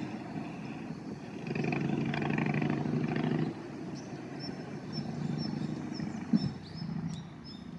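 Engine drone overhead, a steady buzzing with one pitch, loudest for a couple of seconds starting about one and a half seconds in and then fainter; the uploader wonders whether it is a motorised paraglider. Small birds chirp in the second half.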